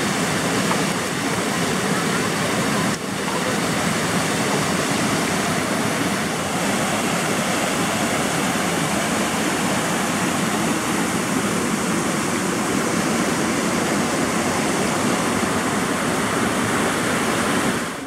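Rushing white water of a mountain river cascade, a steady loud rush, with a brief drop about three seconds in; the river is swollen with high water.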